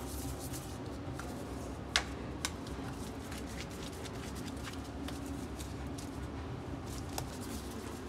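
Gloved hands rolling and shaping a ball of bread dough on a counter: soft rubbing and handling noise, with a sharp knock about two seconds in and a smaller one half a second later, over a steady low hum.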